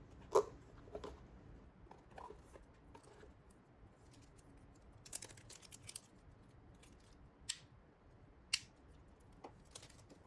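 Handling sounds from unboxing a tablet: scattered small clicks and taps of packaging and device being handled, with a quick cluster of ticks midway and two sharper clicks near the end.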